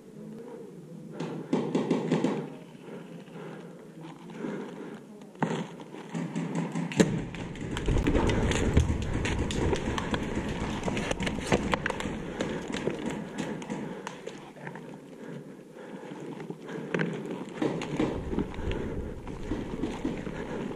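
Scraping, crunching and scattered knocks of a person in a ghillie suit moving over concrete rubble and debris, getting louder and fuller from about seven seconds in.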